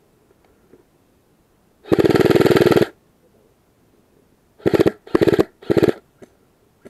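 Airsoft rifle firing on full auto: one burst of about a second, then three short bursts in quick succession a couple of seconds later. Each burst is a fast run of shots.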